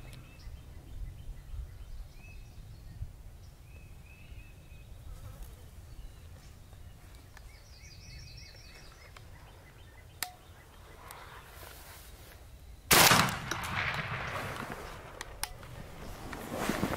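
A single shotgun blast about 13 seconds in, by far the loudest sound, followed by a couple of seconds of loud noise as it dies away.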